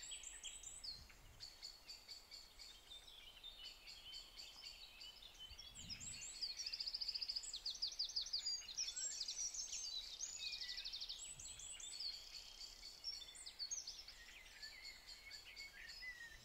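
Several songbirds singing together: overlapping fast trills and quick repeated chirps, busiest about halfway through, in a countryside-morning birdsong recording.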